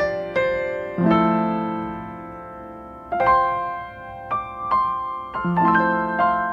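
Background piano music: slow, gentle notes and chords, each struck and fading away, with a low chord struck about a second in and again near the end.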